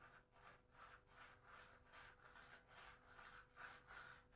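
Regrouting tool scraping old grout out of the joints between ceramic tiles, in short back-and-forth strokes about two and a half times a second.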